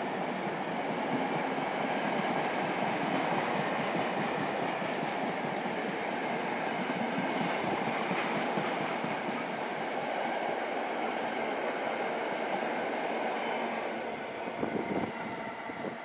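Loaded car-carrier freight wagons rolling past: a steady rumble and rattle of steel wheels on rail, with a few sharper clacks and the noise beginning to fade near the end as the last wagons go by.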